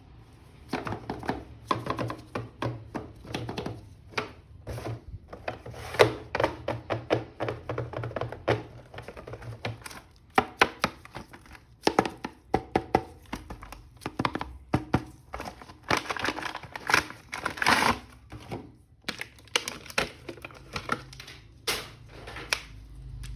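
Plastic packaging and a plastic action figure being handled while being unboxed: irregular clicks, taps and knocks with short bursts of crinkling plastic.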